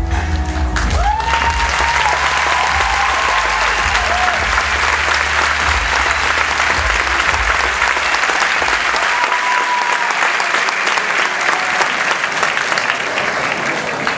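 Audience applauding steadily and loudly, with a few cheering shouts, as the last of the music fades in the first couple of seconds.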